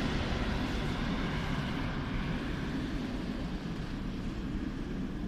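Boeing 737-800's CFM56 jet engines heard as a distant low rumble, fading slightly as the airliner moves away on its landing.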